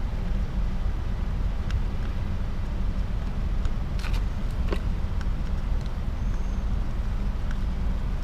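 A steady low rumble throughout, with a few light metallic clicks about four seconds in as small engine parts are handled on a stripped-down motorcycle crankcase.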